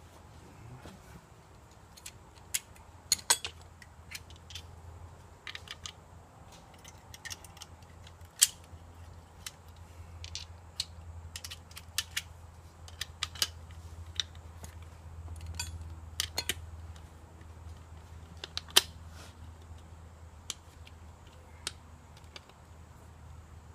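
Scattered sharp metallic clicks and clinks of bolts, nuts and washers being fitted by hand through the two halves of a minibike's split-rim wheel, a few of them louder knocks, over a steady low hum.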